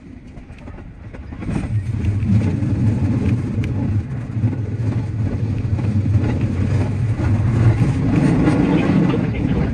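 Running noise of a JR West 207 series electric train heard from the driver's cab. It swells sharply about a second and a half in as the train pulls away, then stays loud and steady with a low hum and rapid clatter.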